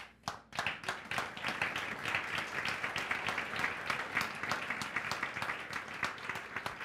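Congregation applauding: a dense patter of many hands clapping that starts suddenly and thins to scattered claps near the end.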